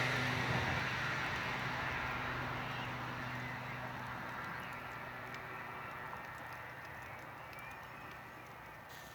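Engine noise of a passing vehicle fading away into the distance, with faint crackles from a wood campfire coming through as it dies down.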